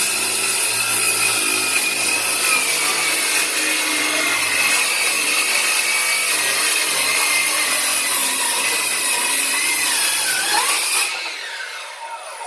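Ryobi One+ 18V brushless cordless circular saw running under load, its blade cutting through wood with a steady high whine. About eleven seconds in the cut ends and the blade winds down, its pitch falling away.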